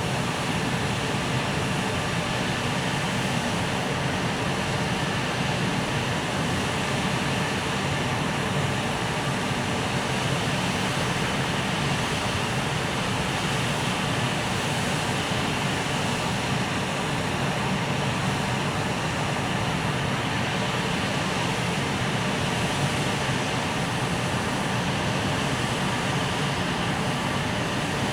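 Steady low mechanical drone from a freight train hauled by an EF510 electric locomotive, even and unbroken with no clicks or knocks.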